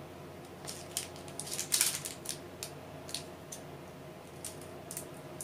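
Light clicks and rattles of hard plastic as a strip of small lidded storage containers for diamond-painting drills is handled, with a quick cluster of clatter about two seconds in and scattered single clicks after.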